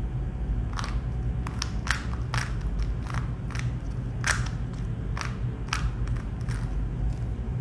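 Plastic Rubik's cube being turned by hand: irregular clicks and clacks of the layers turning, about two a second, over a steady low hum.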